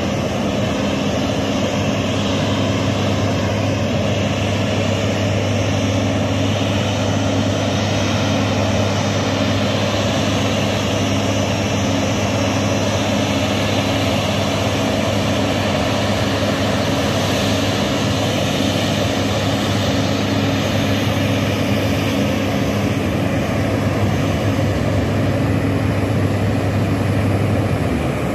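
Steady jet engine noise from a Boeing 737-800 taxiing at idle, mixed with a steady hiss and a low, even hum from the water cannon salute's fire tenders and spray. The low hum drops away just before the end.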